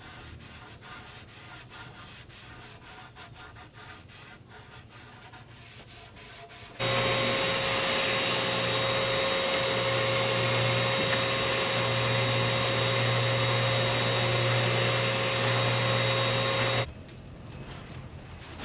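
Faint irregular ticks and scrapes on wood, then a random orbital sander runs on the wood with a steady whine and hum from about seven seconds in, cutting off abruptly about two seconds before the end.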